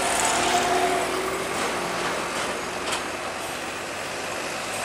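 Road traffic: a motorcycle passing close and the diesel engines of heavy container trucks running as they pull through a junction, a steady mix of engine and tyre noise.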